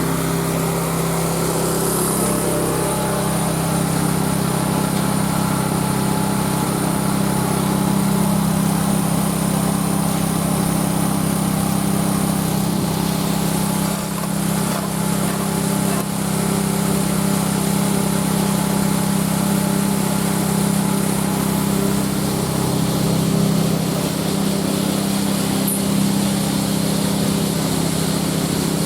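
An engine running steadily at a constant speed, a continuous low hum with no changes in pace.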